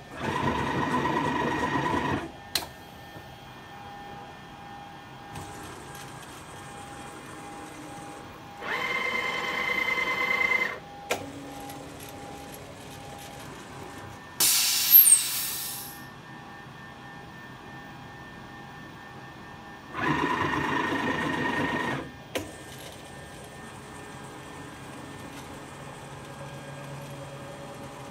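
CNC milling machine spindle turning at 10,000 RPM and cutting holes in three separate cuts of about two seconds each, each with a steady whine, over a low steady machine hum. A short, very loud hiss with a falling whistle comes about halfway through.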